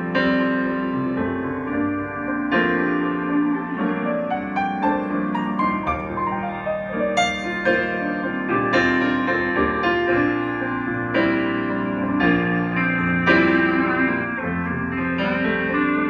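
Stage keyboard on an electric piano sound playing slow, sustained chords. Near the end a slide guitar starts gliding between notes over it.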